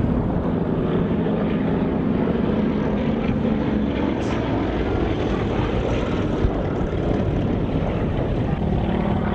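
Steady drone of an aircraft's engines.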